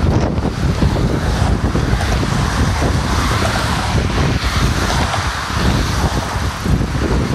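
Strong wind buffeting the microphone in loud, uneven gusts, over a steady hiss of passing car traffic.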